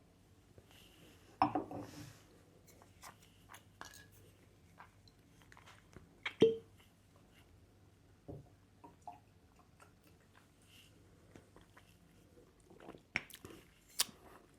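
Faint mouth sounds of a person sipping whisky and working it around the mouth: a sip at about a second and a half in, then small wet clicks. A sharp knock with a brief ring comes about six seconds in, and a few quick clicks near the end.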